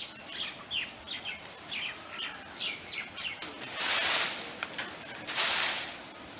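A bird chirping in a quick run of short, high, falling chirps, about three a second, through the first half. Then two short bursts of hiss, about four and five and a half seconds in.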